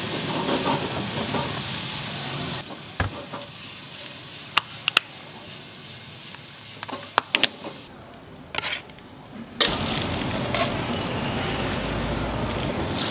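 Steady hissing, then a quieter stretch with several sharp plastic clicks as hinged lids are snapped shut on small plastic sauce cups, then about ten seconds in a sudden return of steady sizzling hiss from the steak on the griddle.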